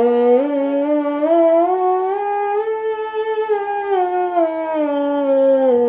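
Bass trombone mouthpiece buzzed on its own, without the horn: a continuous buzzing tone that steps up a major scale about an octave and back down again.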